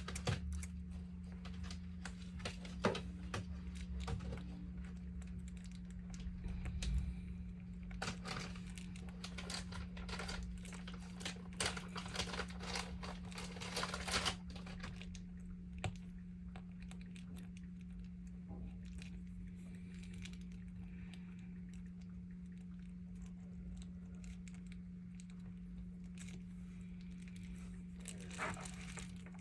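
Irregular light clicks and taps, densest in the first half and thinning out after, over a steady low electrical hum.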